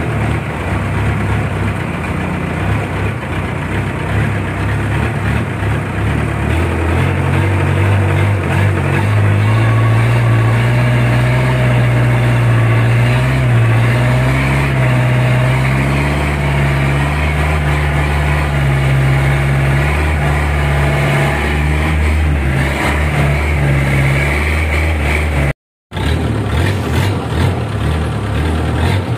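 A boat's engine running steadily as the boat motors along a canal, with a low hum that shifts slightly in pitch. The sound briefly cuts out near the end.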